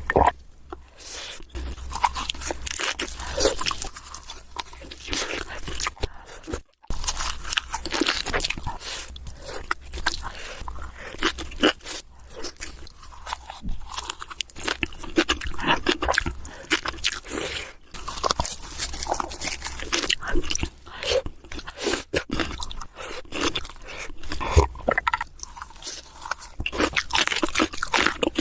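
Close-miked eating: crisp crunching bites and chewing, dense and irregular, with a moment of silence about a quarter of the way through.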